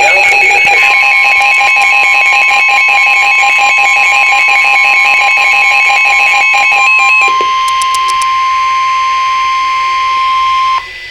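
Weather-radio warning alarm: a loud, single steady tone of about 1 kHz starts about a second in and cuts off near the end, the alert tone that comes before a severe thunderstorm warning. For the first seven seconds a fast warbling electronic alarm sounds over it, and then radio hiss lies under the tone.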